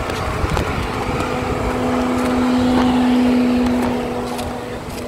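Jeep Wrangler JK engine idling, a steady hum that swells louder about halfway through and eases off near the end.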